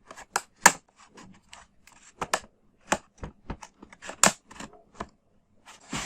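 Plastic retaining clips of an Acer Aspire 3 laptop's bottom cover snapping loose as a plastic card is slid along the seam: irregular sharp clicks and snaps, about a dozen, one after another.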